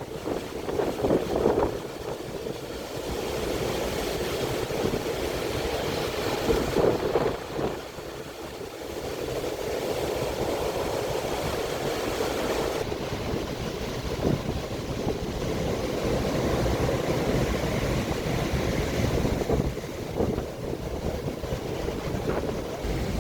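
Stormy sea surf washing and breaking, with strong wind buffeting the microphone in gusts.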